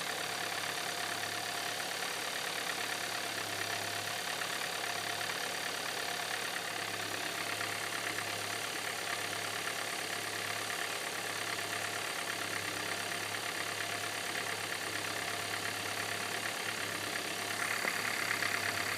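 2013 Hyundai Santa Fe engine idling with a steady knocking clatter that sounds like a diesel. The knock is worse when the engine is cold. Near the end the knocking gets a little louder and sharper.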